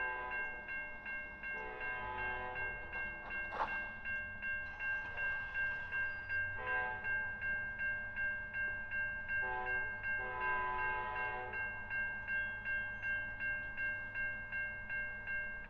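Grade-crossing warning bell ringing steadily and rapidly while a train horn sounds a series of blasts, some long and some short, the last long one about ten seconds in.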